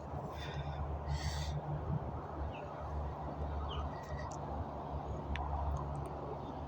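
Steady low rumble of highway traffic in the distance. Near the start a bird gives two harsh calls about a second apart, followed by a few faint chirps.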